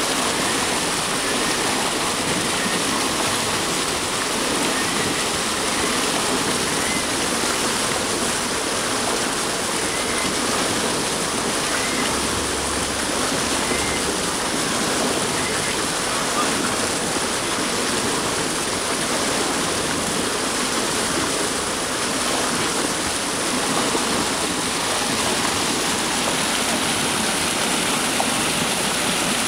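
Water rushing and splashing through a turning Archimedes screw hydro turbine and pouring over the concrete weir beside it: a steady, loud rush of water that holds even throughout.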